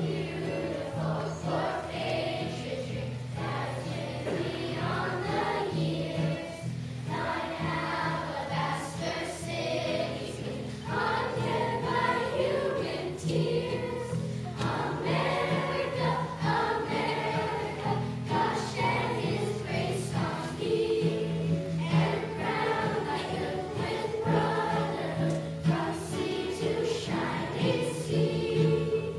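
Children's choir singing a song, accompanied by an acoustic guitar.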